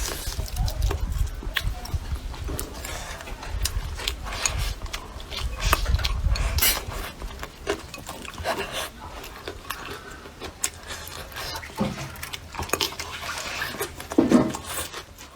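Close-miked eating sounds of braised duck: chewing and gnawing, with many sharp irregular clicks of tableware and low thumps of handling.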